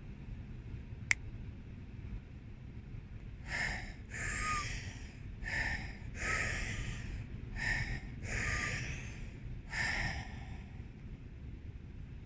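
A woman breathing deeply and forcefully through the mouth in Wim Hof method breath work, about four breath cycles of short and longer rushes of air, stopping near the end for the breath hold on the out-breath. A single sharp click about a second in, over a steady low rumble.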